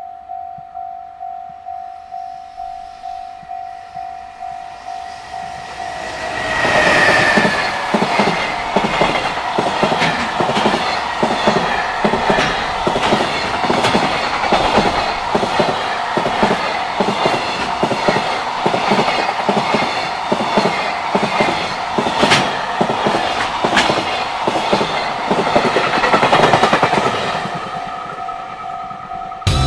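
JR Freight EF210 electric locomotive and a long train of container wagons passing close at speed. The wheels clatter rhythmically over the rail joints from about six seconds in, and the sound fades as the last wagons go by. A level-crossing warning bell pulses steadily about twice a second before the train arrives and again at the end.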